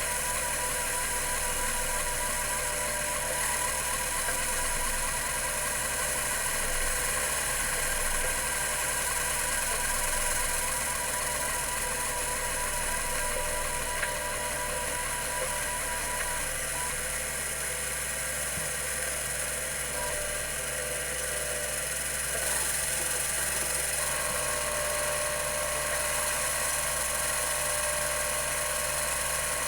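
CMI CM-5412 full-height 10 MB hard drive running, its two platters spinning at 3600 RPM with a steady motor whine and hiss. A new steady tone joins the whine about three quarters of the way through.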